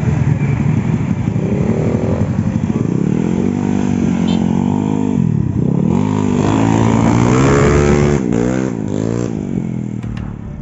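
A car and then motorcycles and scooters passing close by on a road, one after another. Their engine notes rise and fall in pitch as they ride past, and the sound fades away near the end.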